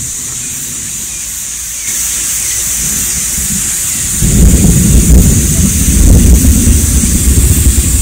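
Thunder rumbling: a deep, rolling rumble breaks in suddenly about halfway through and keeps going, rising and falling in strength.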